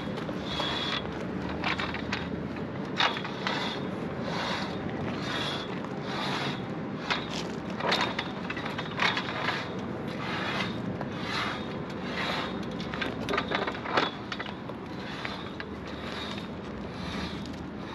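Forestay wire being worked through a roller furler's aluminium foil and the bearings inside it: repeated scraping and clicking, about two strokes a second, with a few sharper clicks.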